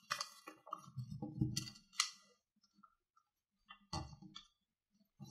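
Square of origami paper being folded and creased by hand: soft crinkles and rustles in the first two seconds, a pause, then a sharper crackle about four seconds in.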